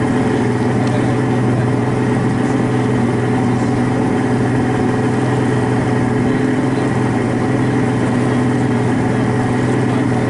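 Fishing boat's motor running at a steady, even pitch: a constant low hum.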